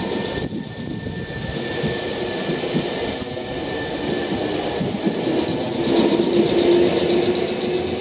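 Nankai electric train running on the track at the station: wheels clattering on the rails under a steady motor tone, which swells about six seconds in.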